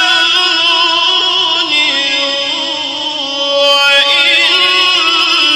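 A male Quran reciter's voice in melodic tajweed recitation, holding long drawn-out notes with a wavering ornamented vibrato. The pitch moves to a new held note about two seconds in, and the voice grows louder again near the end.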